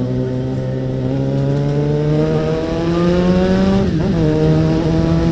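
Suzuki Bandit 650N motorcycle's inline-four engine with a loud exhaust, accelerating with the pitch rising steadily, then dropping at a gear change about four seconds in before running on steady.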